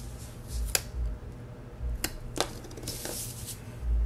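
A clear plastic ruler being set down and moved across a paper planner page: a few light clicks and taps, with soft dull bumps against the desk.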